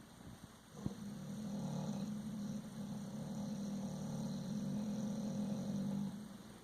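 Puppy snoring: one long, low snore lasting about five seconds, starting about a second in and fading out near the end.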